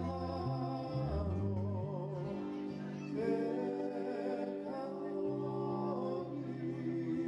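A man singing while playing an acoustic guitar, holding long notes that waver in pitch over the guitar's low notes.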